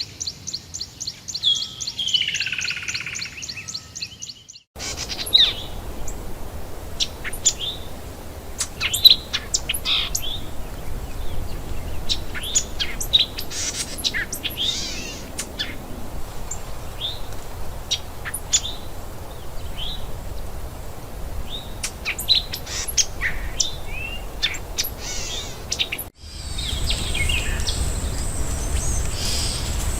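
Forest birds chirping and whistling: many short calls from several birds over a steady hiss of forest background. The first few seconds hold a fast, even high pulsing with one falling call, and from near the end a steady high whine runs under the birds, with abrupt changes where the recordings are joined.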